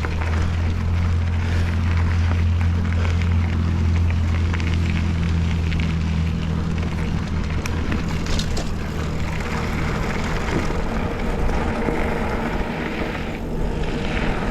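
Mountain bike rolling along a dirt double track: a steady crackle of tyres and wind, under a low engine hum that fades away after about six seconds.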